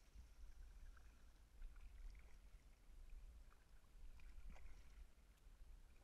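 Near silence, muffled by a GoPro's waterproof housing: faint kayak paddling, with a steady low rumble and scattered soft ticks and knocks.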